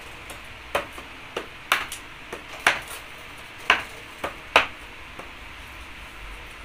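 A curved iron pry bar striking a small wooden packing crate, about ten sharp, irregular knocks over roughly five seconds as the crate is broken open.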